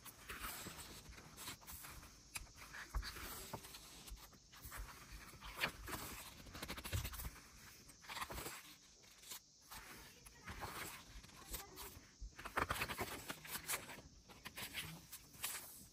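Pages of a CD album's paper booklet being turned and smoothed by hand, with soft rustles of paper and scattered light clicks.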